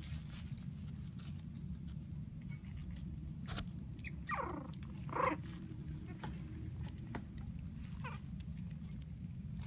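Three-week-old Havanese puppies whimpering and squeaking: a falling whine about four seconds in, a louder short yelp about a second later, and a faint whimper near the end, over a steady low hum.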